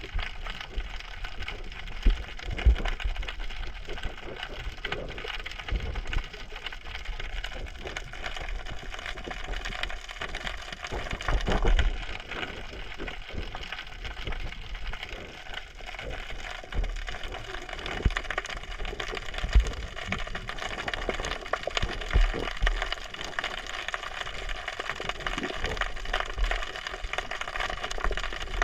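Underwater ambience through a GoPro's waterproof housing: a steady dense crackling and ticking, with occasional low thumps of water moving against the camera.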